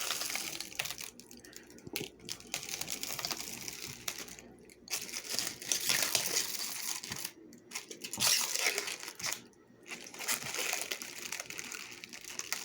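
Plastic protective wrapping being peeled off a new portable washing machine and crinkled in the hands. It crackles in spells with several short pauses.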